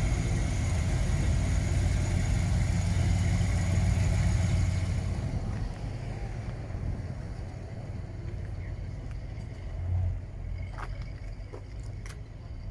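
A classic car's engine running close by as it drives past, loud and low for about five seconds and then falling away. A few faint clicks follow near the end.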